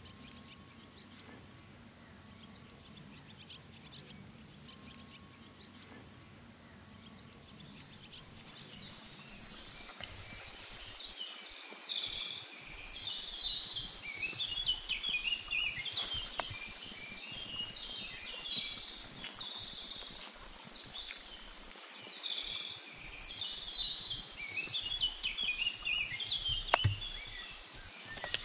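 Birds singing in woodland, a dense chorus of chirps and trills that sets in about a third of the way in after a quiet start. A couple of sharp pops from a campfire stand out.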